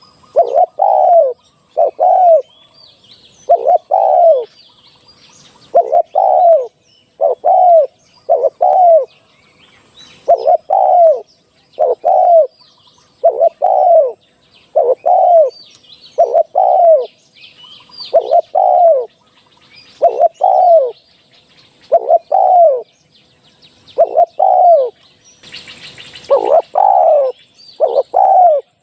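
Spotted dove cooing over and over, short falling coo notes in quick groups of two or three with brief gaps between, and faint chirps of small birds behind.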